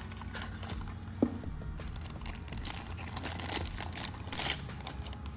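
Small cardboard box of a die-cast toy car being opened and handled: irregular rustling and scraping of the cardboard, with one sharp click about a second in, over a low steady hum.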